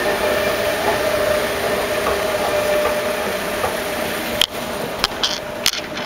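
Escalator running with a steady mechanical hum carrying a faint steady tone. About four and a half seconds in there is a sharp click and the hum drops away, followed by a few footsteps clicking on a hard tiled floor.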